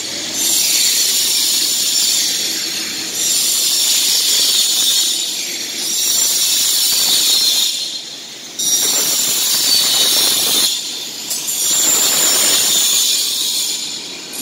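Power tool grinding metal in a fabrication shop: a loud, high hiss in passes of about two seconds, broken by short pauses.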